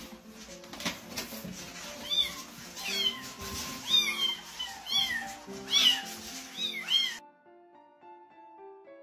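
Several kittens meowing over and over, high-pitched calls that fall in pitch, about one a second, after a few knocks and rustles of the cardboard carrier being opened. The meowing cuts off suddenly about seven seconds in, leaving only background piano music.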